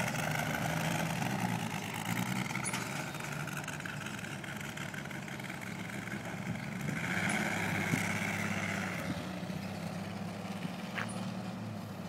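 Engine of a 1949 Chevrolet 3800 one-ton pickup running as the truck drives away, swelling briefly about seven seconds in and growing fainter as it recedes.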